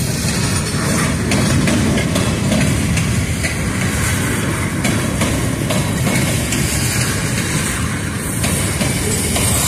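Gondola cars of a freight train rolling past: a steady rumble of steel wheels on rail, with occasional clicks.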